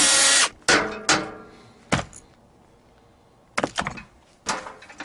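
Cordless drill running, stopping about half a second in, then a series of separate knocks and clatters as the heater's parts are handled.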